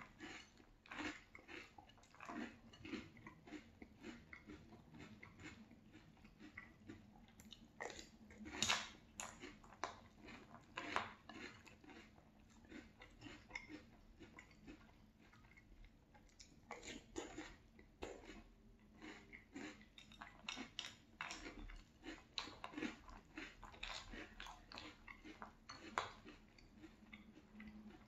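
Close-up chewing of crunchy French Toast Crunch cereal in milk: irregular crunches and mouth sounds, with now and then a spoon knocking in the glass bowl.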